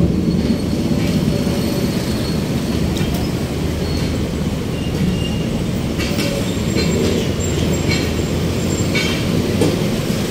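A passing train's steady rumble, with thin high squeals of wheels on rail.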